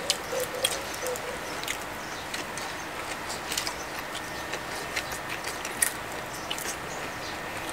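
Close mouth sounds of two people eating crispy fried salmon: chewing with many short, scattered crunches and clicks.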